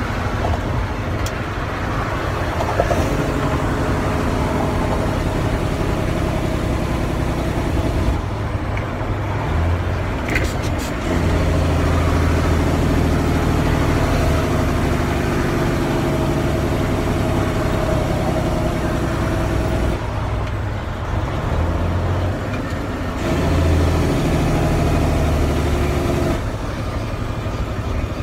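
Cummins diesel engine of a 1998 International 9400 truck running, heard from inside the cab. The engine note eases off and picks up again several times as the driver changes gears on the 10-speed Spicer manual transmission.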